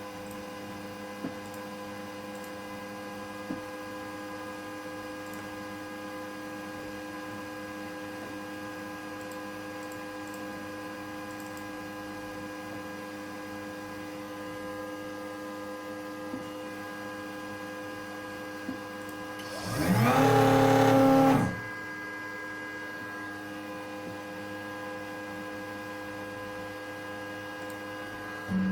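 CNC router running steadily while milling a printed circuit board, a constant hum of several steady tones. About 20 seconds in, the machine gives a louder whine for about a second and a half, rising and then falling in pitch.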